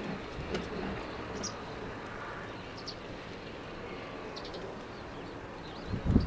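Steady outdoor background noise with a few short, high bird chirps scattered through it. Near the end comes a brief low thump, the loudest sound.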